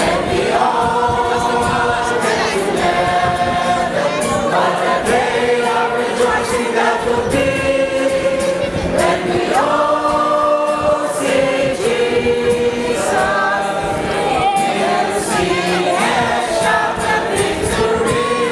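A small church group singing a Christian song together, with long held notes, accompanied by a strummed acoustic guitar.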